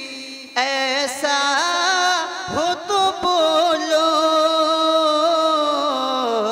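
A man singing a naat solo into a microphone, drawing out long, wavering melismatic notes without distinct words; he breaks briefly at the start and resumes about half a second in.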